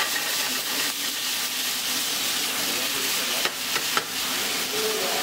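Asparagus sizzling in hot coconut oil in a frying pan as the pan is shaken to toss the spears. A couple of sharp clicks come about three and a half and four seconds in.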